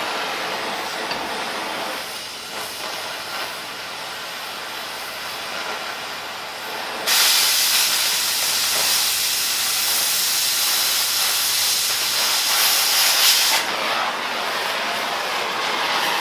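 Oxy-fuel cutting torch cutting through 1/2-inch steel plate, a continuous hissing rush. It gets much louder about seven seconds in and drops back again about six seconds later.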